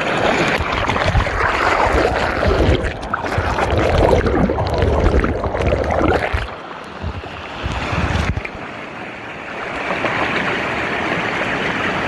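Mountain stream rushing and splashing over boulders in a steady roar of water. Low rumbling buffeting on the microphone for most of the first eight seconds, easing off later.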